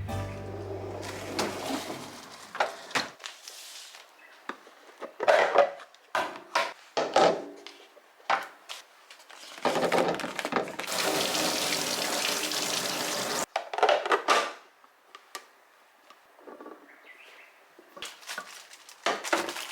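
Kitchen food containers being handled: scattered knocks and clinks as containers are set down and opened. About ten seconds in comes a steady rushing noise lasting some three and a half seconds, like water from a tap or dry food being poured.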